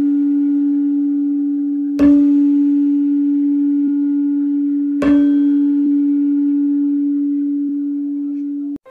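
A low, bell-like chime tone ringing on one steady note, struck again twice (about 2 and 5 seconds in), each strike with a sharp attack and slowly fading overtones, cutting off suddenly just before the end.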